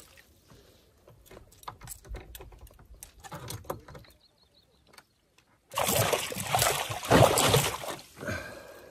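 Scattered light knocks and taps, then about two and a half seconds of loud splashing in the second half as a big northern pike thrashes at the side of a canoe while it is landed.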